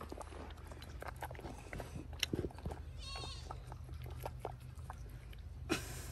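Nubian goat eating watermelon from a glass bowl: wet chewing and slurping with small clicks of its muzzle against the bowl. A short high warbling call comes about three seconds in.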